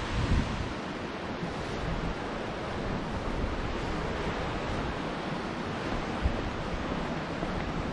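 Steady rush of flowing and falling water, with wind buffeting the microphone near the start and a single low thump about six seconds in.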